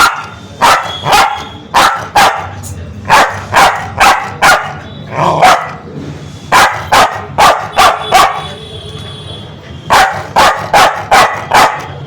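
A Spitz dog barking sharply and repeatedly in quick runs of two to five barks, about twenty in all, with a short pause before the last run.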